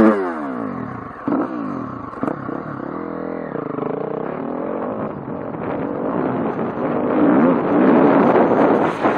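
Single-cylinder four-stroke enduro dirt bike engine revving. It is loud at the start and drops in pitch as the throttle closes, then revs up and down again as the bike rides on.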